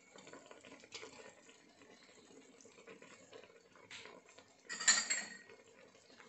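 Quiet handling at a stainless-steel cooking pot, with a sharp metallic clink and short ring, like a utensil or dish knocking against the steel, just before five seconds in.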